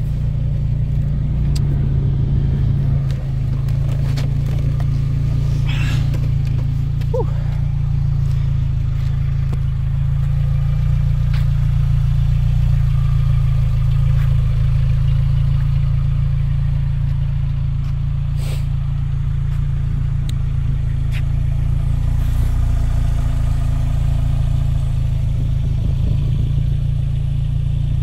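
2005 Lotus Elise's 1.8-litre Toyota four-cylinder idling steadily, heard at the exhaust.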